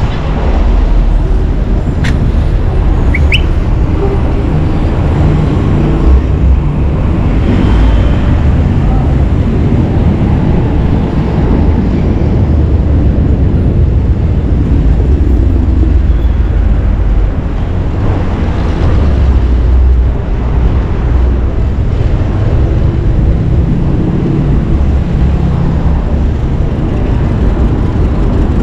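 City street traffic noise with heavy, steady wind buffeting on the microphone, with a couple of brief high squeaks early on.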